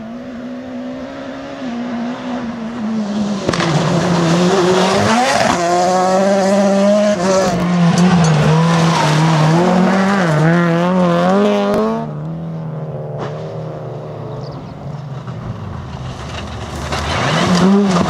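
Rally car engines at high revs on a loose gravel stage, one car after another, their pitch rising and falling with the throttle as the cars slide through corners. The loudest car is in the middle, a quieter engine follows, and another comes up loud near the end.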